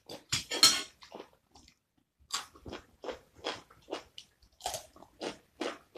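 A person biting and chewing food from a plate of shrimp fried rice: a loud crunchy bite about half a second in, a short pause, then steady chewing at about two to three chews a second.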